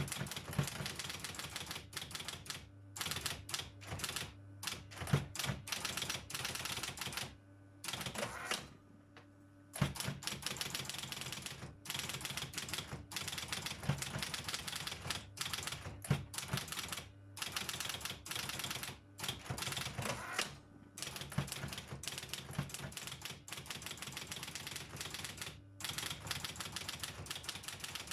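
Robotron 202 typewriter being typed on: rapid runs of sharp key strikes with short breaks and one longer pause about eight seconds in, over a steady low hum.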